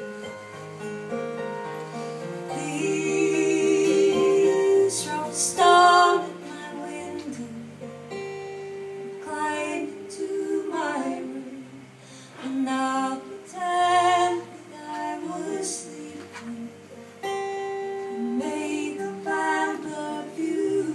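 A woman singing a folk song to her own acoustic guitar, heard live from among the audience in a hall, with long held notes sung with vibrato.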